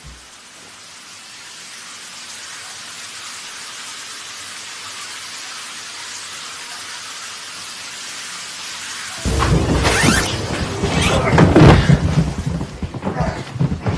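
A steady rain-like hiss, slowly growing louder. About nine seconds in, a sudden loud burst of dramatic music sets in, with sharp thumps of a struggle.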